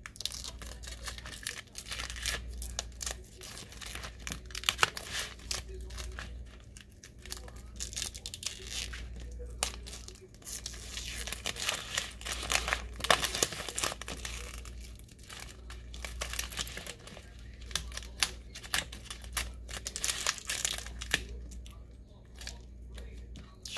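Adhesive vinyl being peeled off its backing sheet and the peeled scraps crumpled in the hand: irregular crackling, tearing rasps and crinkles, busiest about halfway through.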